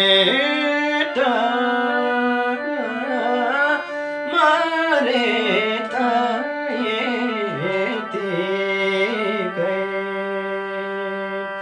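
A Nepali folk song performed live: a singer's wordless, gliding vocal line over sustained instrumental accompaniment and a hand drum.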